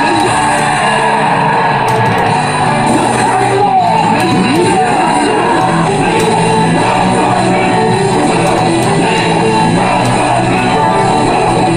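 Loud rock music with guitar and shouted vocals, playing continuously from a pachislot slot machine's speakers as game music.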